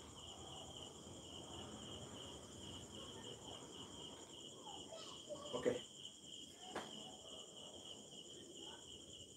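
Faint, steady, pulsing trill of crickets, with a couple of soft knocks between about five and seven seconds in.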